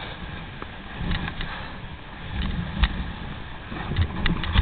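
Dog sled moving over snow: runners scraping steadily, with low rumbling bumps and a few sharp knocks.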